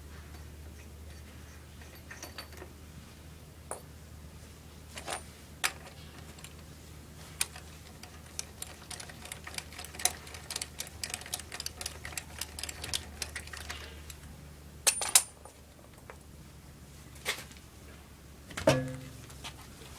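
Hand tools and metal parts being handled during a tyre change: irregular clicks and metallic clinks, a rapid run of clicking in the middle, two loud clacks, then a heavier knock near the end, over a steady low hum.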